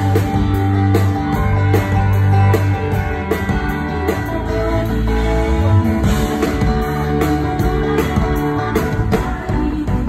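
Live rock band playing a song with electric guitar over a steady beat, loud and full, heard from close to the stage.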